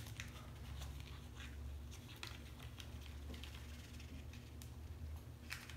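Faint rustling and small scattered clicks of a plastic spoon scooping powdered slime mix out of a paper packet and the packet being handled, over a low steady hum.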